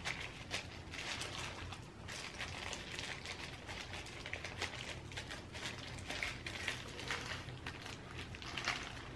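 Fried tofu pouches and sticky rice being handled: a soft run of small crackles and squishes as seasoned rice is pressed into the pouches, over a low steady hum.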